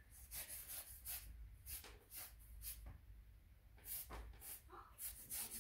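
A paintbrush stroking across the paper of a portrait on an easel: an irregular series of short, scratchy swishes, two or three a second.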